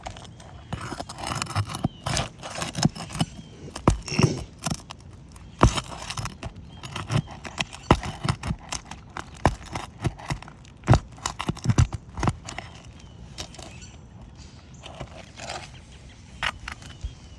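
Metal roofing tool scraping and knocking against three-tab asphalt shingles as they are unsealed and pried at the nails, in irregular sharp clicks and knocks that thin out over the last few seconds.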